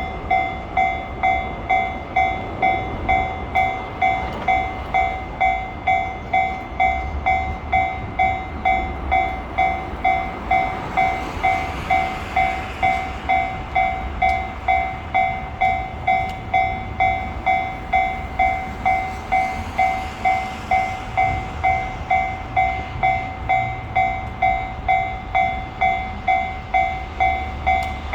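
Japanese railway level-crossing warning bell ringing at a steady pace, a little under two strikes a second, over a low rumble.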